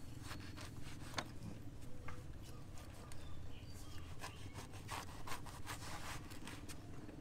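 A large knife cutting and peeling the thick rind of a pomelo: irregular scraping and slicing strokes with scattered sharp clicks, some where the blade knocks the bamboo slat table.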